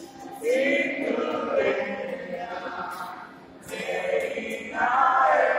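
A group of boys and young men singing together, several voices on held, sliding notes, in phrases with a short breath break about three seconds in.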